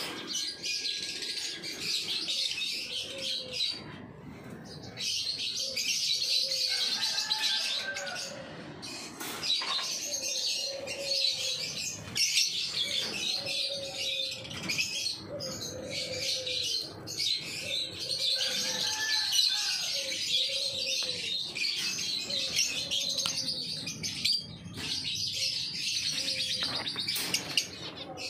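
A flock of caged birds chirping and chattering, the chatter coming in bouts of a few seconds, with a lower short call repeated about once a second underneath.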